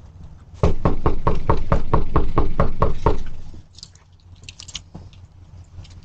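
Rapid, loud knocking on a front door: about fourteen quick knocks at roughly five a second, starting about half a second in and stopping about three seconds in.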